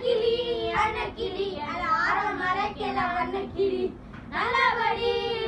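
Boys singing, their held notes breaking off briefly about four seconds in before they start again.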